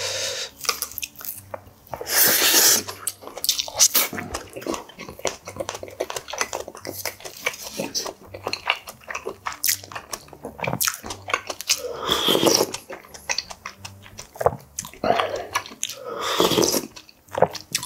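Close-miked eating sounds: wet chewing and slurping, with chopsticks and a spoon clicking and scraping on dishes. Near the end, soup is ladled from a pot into a wooden bowl with a liquid splash.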